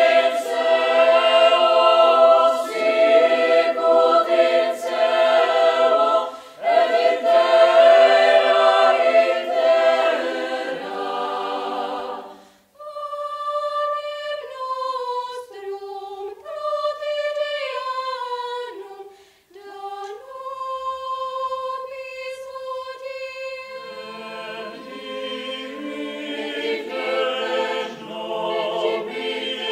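Mixed secondary-school choir singing a cappella. The full choir sings for the first dozen seconds, then after a short break fewer, higher voices carry on alone, and the lower parts join again about two-thirds of the way through.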